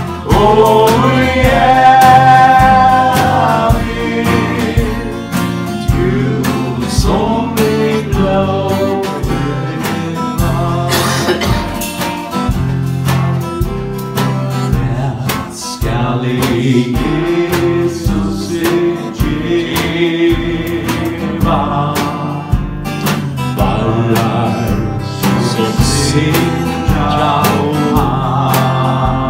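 A man singing while strumming an acoustic guitar, the voice held in long notes over a steady strum.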